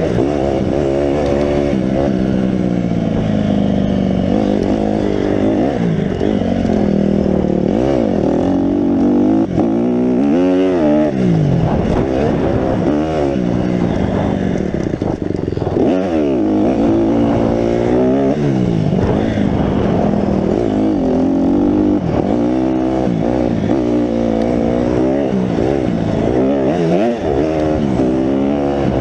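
Honda motocross bike's engine being ridden hard, the revs climbing and falling again and again as the rider accelerates, shifts and rolls off, heard from the rider's seat.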